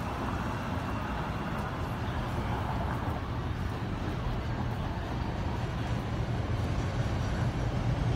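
Steady city street noise of road traffic and an elevated CTA train on the viaduct overhead, getting a little louder near the end.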